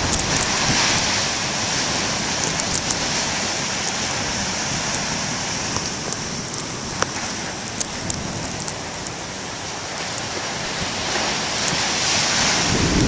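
Heavy storm surf on the shore: a steady rushing noise of big waves breaking, mixed with wind, swelling again near the end. Scattered sharp little clicks over it.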